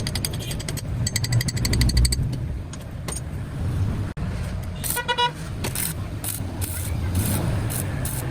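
Road traffic rumbling, with a rapid engine clatter for about a second near the start and a short horn toot about five seconds in.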